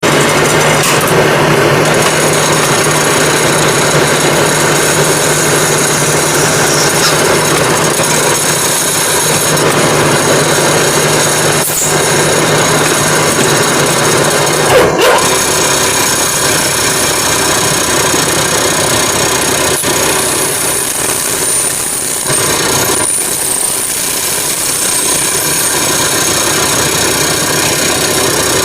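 Britan capstan lathe running while it turns brass bushings: a loud, steady machine noise with a low hum that drops out about halfway through, after a brief knock.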